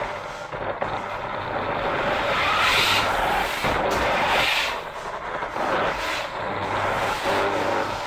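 New Bright radio-controlled toy car's electric motor and gearbox running as it drives over a wooden floor, growing louder twice, about two and a half seconds in and again near four and a half seconds. The owner thinks a drumming noise in it comes from the transmission rather than the body rubbing.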